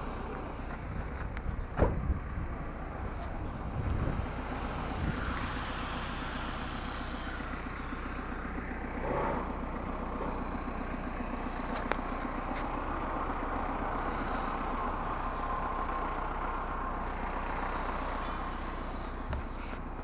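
An engine running steadily with a fine regular pulse, with a couple of sharp knocks in the first few seconds.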